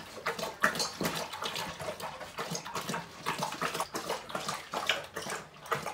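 Great Dane lapping water from a stainless steel bowl: a quick, irregular run of wet, splashy laps.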